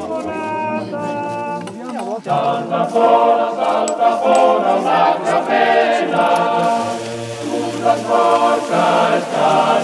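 Choir singing in harmony, unaccompanied voices, as background music. There is an abrupt break about two seconds in, after which the singing continues louder.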